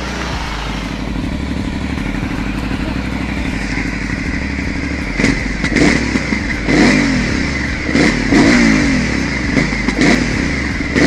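Aprilia Shiver 900's 90-degree V-twin on its stock exhaust, running steadily and then blipped about seven times from about five seconds in. Each blip's revs rise and fall straight back, with sharp cracks from the exhaust: the pops and bangs.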